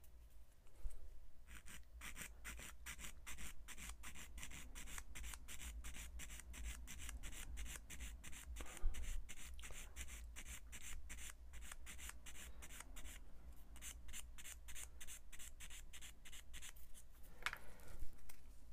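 Quick back-and-forth strokes of a small hand file rasping on a plastic model-kit part, about five strokes a second with a short pause about two-thirds through: smoothing off the part's attachment nubs.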